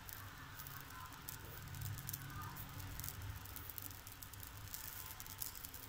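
Quiet kitchen background: a faint steady low hum and hiss, with a few faint ticks.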